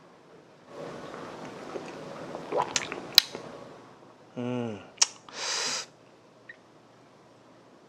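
A person sipping and slurping young homebrewed beer from a plastic hydrometer test jar, with a few small wet clicks, for about three seconds. Then a short low "hmm" that falls in pitch, a click, and a brief breathy puff as he weighs the taste.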